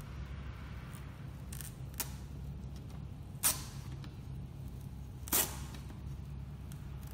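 Short crackling and rustling as a thin gray strip is lifted and pulled loose inside an opened LCD projector, heard as four brief crackles, the loudest about three and a half and five and a half seconds in, over a steady low hum.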